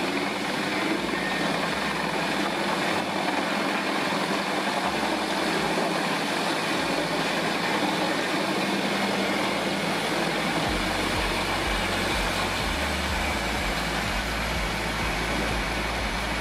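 Vermeer HG6000 horizontal grinder running, a steady dense engine and grinding noise as it processes logs and brush into mulch. The low rumble grows stronger about two-thirds of the way through.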